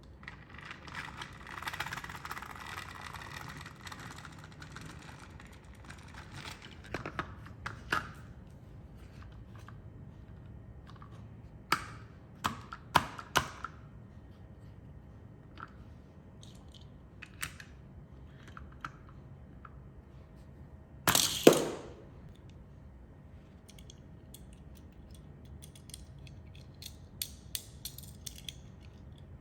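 Scattered sharp clicks and clacks of small hard objects being handled, with a scraping rustle near the start and one louder clatter about two-thirds of the way through.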